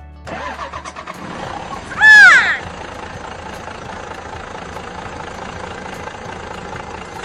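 Cartoon sound effect of a vehicle engine starting and then running steadily. About two seconds in, a loud, short high-pitched sound rises and falls in pitch over it.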